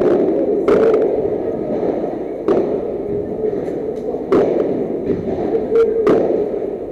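Padel ball hits: sharp, single knocks of the ball off rackets, the court or the glass walls, about every two seconds, over a steady background hum of the indoor hall.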